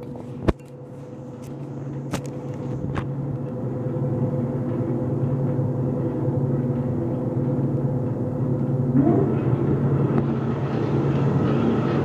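Hobart HL662 60-quart planetary mixer running with an empty bowl, its motor and gear drive giving a steady hum with a mechanical rattle. A click near the start, then the running sound swells over the first few seconds; about nine seconds in a rising whine and the sound grows brighter.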